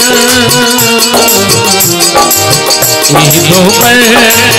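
Devotional folk music in an instrumental break between sung lines: a harmonium and keyboard melody over a dholak rhythm, with steady jingling percussion keeping time.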